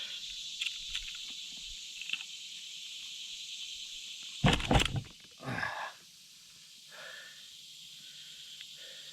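Steady high-pitched insect buzz in the background. A loud, brief knock about four and a half seconds in, followed by a fainter one and a few light ticks.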